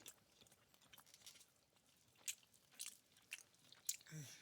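Soft close-miked chewing and mouth sounds: scattered short clicks a few times a second, with a brief hum from the eater near the end.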